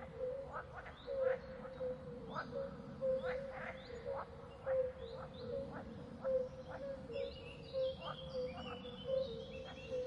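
Wild birds calling: quick falling calls repeated about twice a second over a steady low tone, with higher twittering chirps joining in about seven seconds in.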